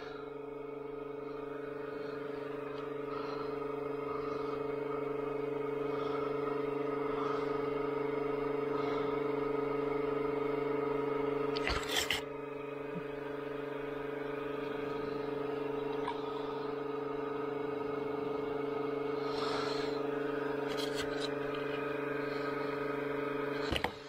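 A steady low-pitched electrical or mechanical hum with overtones, growing slightly louder. A sharp knock comes about halfway through, and the hum cuts off just before the end.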